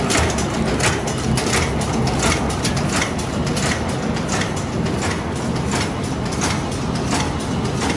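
Semi-hollow rivet making machine running, with quick repeated clacks of its strokes, about three a second, over a steady mechanical din.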